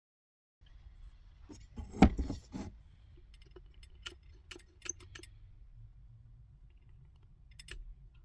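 Metal parts or tools being handled on a workbench: light metallic clinks and taps, with one louder knock about two seconds in.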